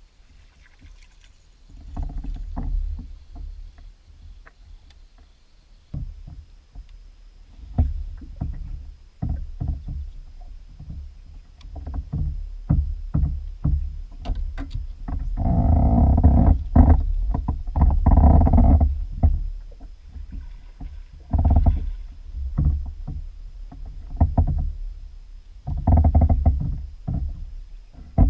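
Irregular hollow knocks and clicks with a low rumble from a plastic Native Slayer Propel 10 fishing kayak being moved and handled on the water, growing louder and busier in a few stretches, the loudest about two-thirds of the way through.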